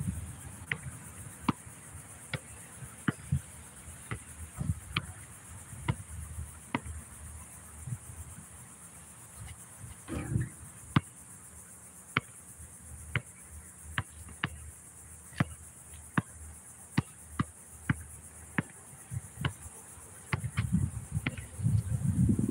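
Basketball dribbled on an outdoor court surface: sharp bounces, irregular, about one or two a second, over a steady high-pitched insect buzz. A louder stretch of low rumbling noise comes near the end.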